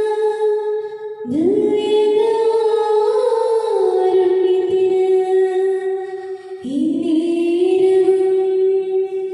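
Slow devotional hymn sung in long, held notes by a high voice. New phrases begin about a second in and again near seven seconds, each sliding up into its note.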